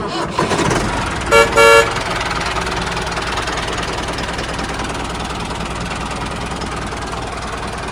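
Two short toots of a vehicle horn, over a steady engine-like running noise.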